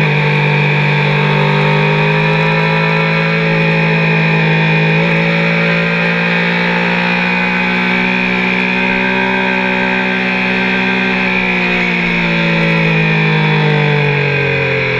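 Triumph sport bike's three-cylinder engine pulling hard at high revs through a long bend, heard from on board over the rush of wind, its note holding fairly steady and then dropping in pitch near the end as the bike slows.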